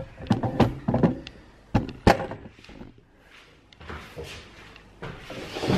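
Several sharp knocks and thuds of objects being handled and set down on a wooden table, the loudest about two seconds in, followed by quieter shuffling.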